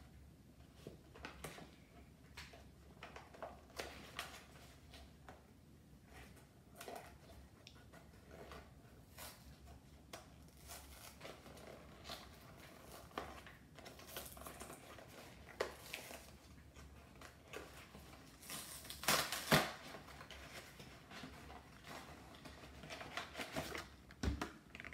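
A Lunchables cardboard box being torn open by hand and its plastic-wrapped tray pulled out: faint, scattered tearing, crinkling and tapping, with a few louder rustles about three-quarters of the way in.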